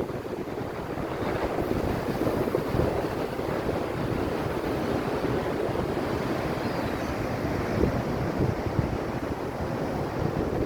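Storm-driven sea waves surging against the sea wall in a steady, continuous rush, mixed with strong gale wind buffeting the microphone.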